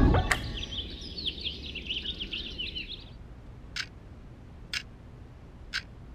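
Small birds chirping for about three seconds, then an analogue alarm clock ticking, three ticks about a second apart.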